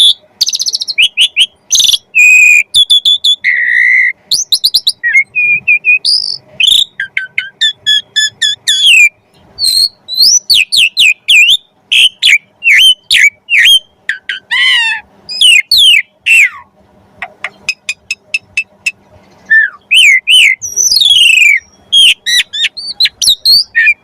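Asian pied starling (jalak suren) singing a loud, varied song of sharp whistles, chirps and fast repeated note runs that rise and fall in pitch, with short pauses between phrases. This is the starling song used as training material for a magpie-robin to copy.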